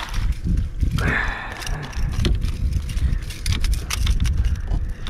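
Speckled trout scooped up in a landing net beside a plastic kayak: a splash and water pouring off the mesh about a second in, then knocks and rattles as the net and the thrashing fish come aboard.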